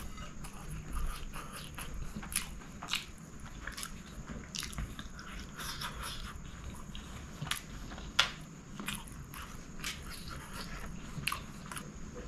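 Close-up chewing of a mouthful of chicken kottu roti, mouth closed, made of irregular soft crunches and clicks.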